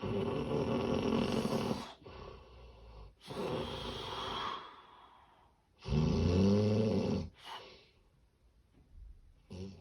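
Loud, irregular snoring: three heavy snoring breaths, the third with a buzzing, pitched rattle, then a pause with barely any breath before short catches near the end. It is presented as the snoring of severe sleep apnea.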